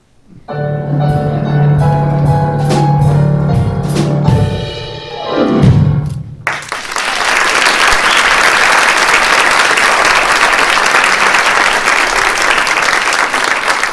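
A live band with piano and drum kit plays the closing bars of a song, with cymbal crashes and a falling slide at the end. The music stops about six seconds in and the audience breaks into steady applause.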